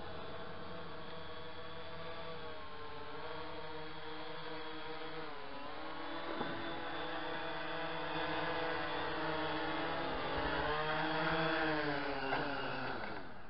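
Tovsto Aegean quadcopter's brushless motors and propellers whining as it hovers and comes in to land, the pitch wavering up and down as the throttle is worked, louder as it descends close by. Near the end the pitch drops sharply and the motors stop as it touches down.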